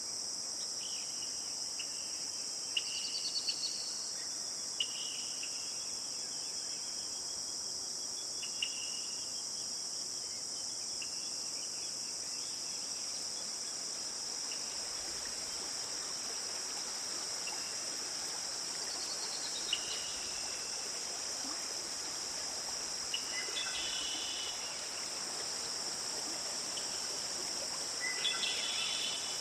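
Forest ambience: a steady, high-pitched chorus of insects, with scattered short bird calls and chirps, including a couple of quick falling notes, about three seconds in and again near twenty seconds.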